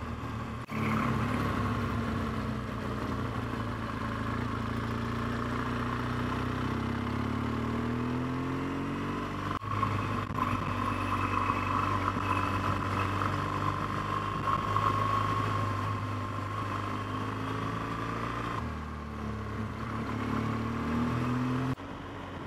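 BMW R1200GS boxer-twin engine running under way, its pitch rising and falling with the throttle through the bends, over a steady rush of wind and road noise. The sound shifts abruptly a few times.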